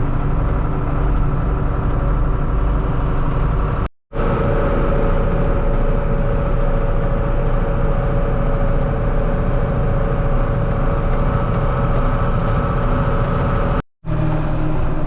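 John Deere 4840's turbocharged six-cylinder diesel engine running steadily as the tractor drives down the road, freshly overhauled and running well. The sound drops out briefly twice, about four seconds in and near the end.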